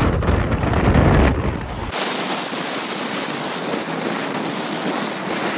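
Wind buffeting the microphone with a heavy rumbling hiss; about two seconds in it switches abruptly to a steadier, thinner hiss of sea wind and small waves washing on the shore.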